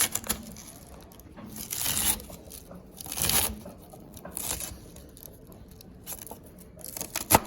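Large knife slicing through red cabbage on a chopping board: a few separate slicing strokes, each about half a second long, with sharp knocks of the blade on the board, the loudest near the end.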